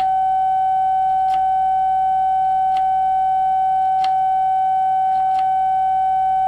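A transceiver's steady CW sidetone: one pitched tone held with the key down while a carrier is sent to tune a magnetic loop antenna. Faint light clicks come about every second and a half as the remote control's fine-tune buttons are pressed.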